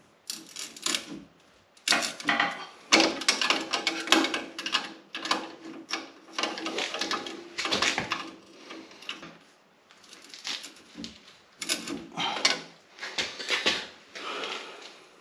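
Irregular metallic clicks, clanks and scraping of a hand tool working on a UTV's front coilover shock, turning its spring preload collar.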